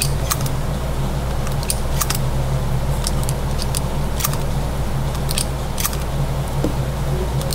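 Steady low hum of an indoor shooting range's ventilation, with a dozen or more light, sharp clicks scattered irregularly through it.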